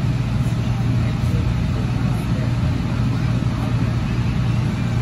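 2006 AnsaldoBreda P2550 light rail car running at speed, heard from inside the passenger cabin: a steady low hum and rumble.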